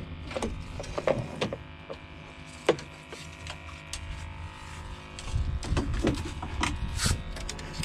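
Handling noise from a fly rod and reel on a boat: scattered clicks and knocks, with a low rumble on the microphone over the second half.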